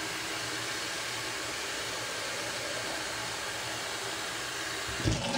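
Kitchen faucet running a steady stream of water into a plastic water bottle as it is filled. A brief knock near the end.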